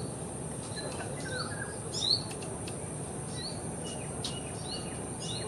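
Sunbird calling: short, high, upward-sweeping chirps, about one a second, with one louder chirp about two seconds in.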